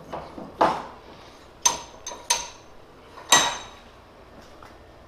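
Four sharp metallic clinks, each ringing briefly, from metal parts knocking together while a hydraulic cylinder clamped in a vise is handled and taped.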